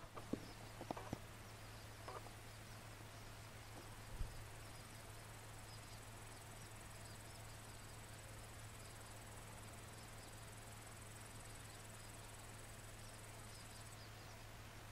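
Faint outdoor ambience: a steady high insect trill from about four seconds in until near the end, over a steady low hum, with scattered short high chirps. A few soft clicks come in the first two seconds, and a single low bump about four seconds in.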